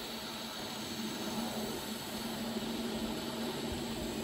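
Argon-shielded welding arc burning steadily while a crack in the suspension is welded shut: an even hiss with a steady low hum underneath.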